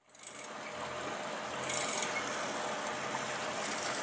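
Steady rush of water and wind past a sailing yacht under way on its motor, with a faint, steady engine hum beneath; it starts abruptly.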